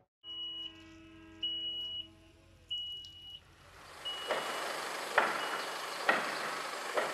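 Crane lifting a load: a high warning beeper sounds in half-second beeps over a steady machine hum, then the crane runs with a rougher noise and a sharp knock about once a second.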